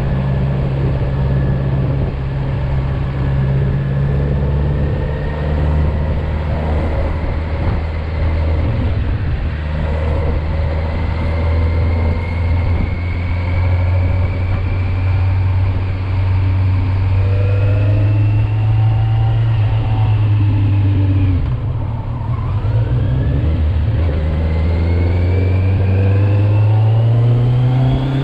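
Kawasaki Z900's inline-four engine under way, its pitch slowly rising for about twenty seconds as it pulls, then dipping briefly before climbing again.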